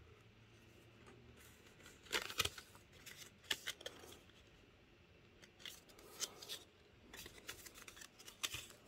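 Paper instruction and warranty cards being handled and shuffled: short, faint rustles and light taps in a few scattered clusters with quiet gaps between.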